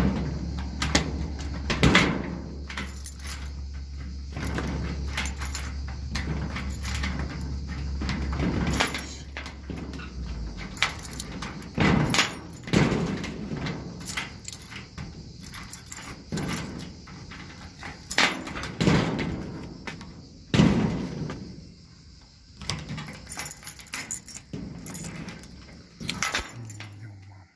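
Repeated knocks, clanks and rattles of a garage door being worked shut and locked, with keys jangling, over a steady low hum that stops about ten seconds in.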